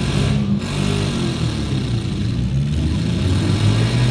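Demolition derby car engines running and revving, several at once, loud and without a break.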